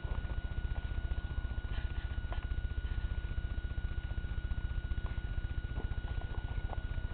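Vehicle engine running steadily, a low rumble with a fast, even pulse, under a thin steady high tone.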